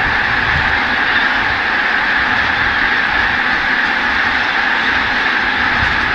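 A huge mixed flock of greater white-fronted geese and bean geese in flight, thousands of calls merging into one loud, steady din with a low rumble underneath.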